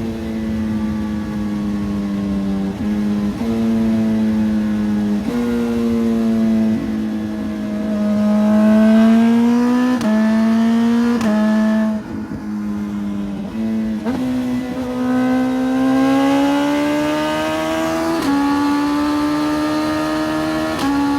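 Suzuki Hayabusa's inline-four running through a Brocks aftermarket exhaust, pulling through the gears. The exhaust note climbs slowly, then drops sharply at each upshift, several times over.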